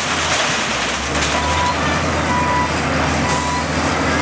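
LOVOL FL956H wheel loader's diesel engine running, with its reversing alarm sounding short high beeps about once a second.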